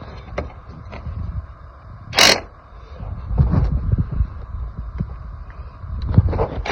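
Scattered low knocks and clicks of hands-on work, with one short rushing scrape about two seconds in.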